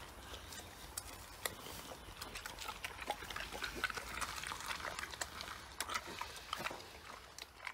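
A pig eating fruit scraps from the ground: an irregular run of small smacks and crunches as it chews with its snout in the food.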